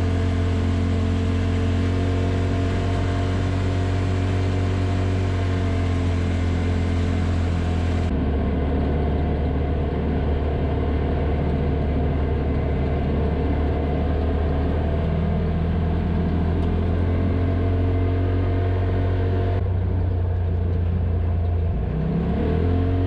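A Polaris RZR side-by-side's engine running at a steady road speed, with a deep steady drone and tyre and road noise. Its pitch and tone shift abruptly about 8 seconds in and again near 20 seconds, with a short rise in revs near the end.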